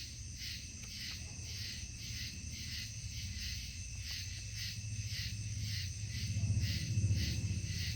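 Night insects, crickets or katydids, chirping in a steady rhythm of about two to three pulses a second, over a low rumble that grows louder around six to seven seconds in.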